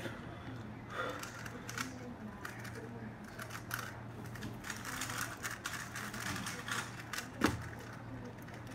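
Small clicks and clatter of speed cubes, cube boxes and timer mats being handled on a tabletop over a steady low hum, with one sharper knock near the end.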